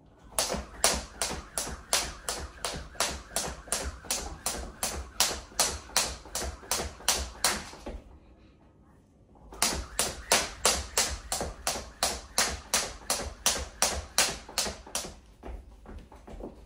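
Skipping rope on a hard floor: the rope slaps down and the feet land in a steady rhythm of about two and a half strokes a second. The rhythm stops for about a second and a half midway, then starts again and turns to lighter taps near the end.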